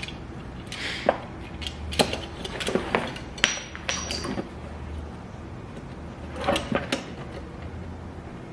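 Small metal bolts and jig parts clinking and tapping as they are handled, in irregular clusters of sharp clicks, some with a brief metallic ring.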